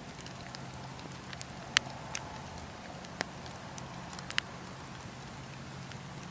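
Bonfire crackling, with a few sharp pops of burning wood: the loudest about two seconds in, another past three seconds and a quick pair just after four seconds, over a steady hiss and a low steady hum.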